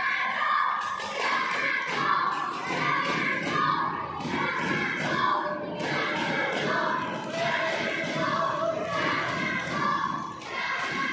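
Crowd of children shouting and cheering, with occasional thuds through it.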